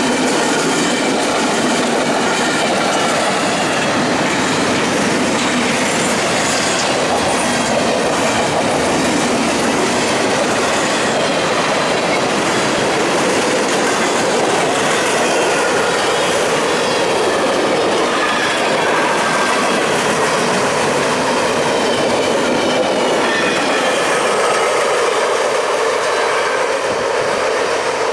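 Double-stack intermodal well cars rolling past close by: a steady, loud rush of steel wheels on rail with clickety-clack over the joints and thin, wavering wheel squeal above it.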